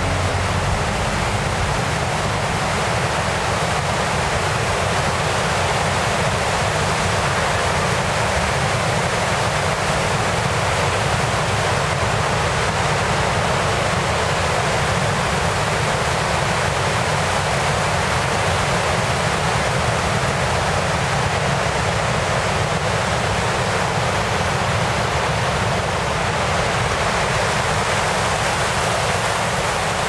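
Steady rush of falling and churning whitewater at Box Canyon Falls, an unbroken noise with no rhythm.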